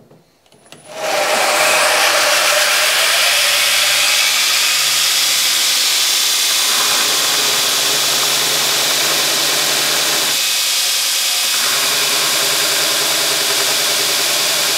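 Belt grinder starting up about a second in, then running loud and steady with a bar of mild steel pressed against the belt for a spark test. The grinding hiss stays steady while the low motor hum drops out briefly twice.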